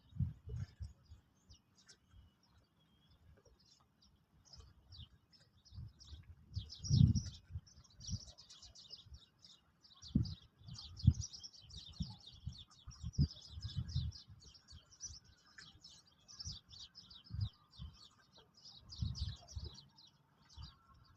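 Small birds chirping and twittering in rapid, overlapping calls at a bird feeder, busiest from about six seconds in. Irregular low thumps come and go throughout and are the loudest sounds.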